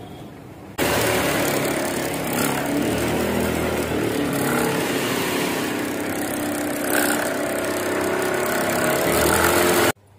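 Industrial sewing machines running together while stitching vegetable bags: a steady, dense mechanical whirr that starts abruptly about a second in and cuts off suddenly just before the end.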